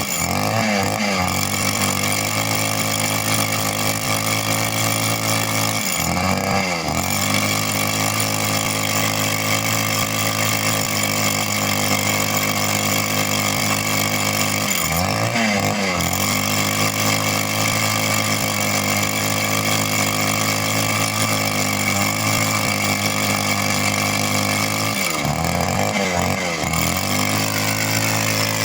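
Two-stroke petrol rock drill running continuously at high speed. Its engine note dips in pitch and comes back up four times.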